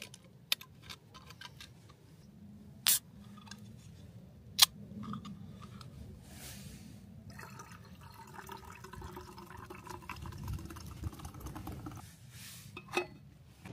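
Rum and coke being mixed in a stainless steel camping mug: a few sharp clicks and snaps as a bottle cap and a drinks can are opened, then liquid poured into the mug for about five seconds, starting about seven seconds in.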